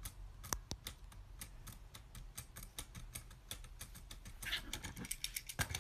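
Faint typing on a keyboard: light, irregular key clicks, several a second.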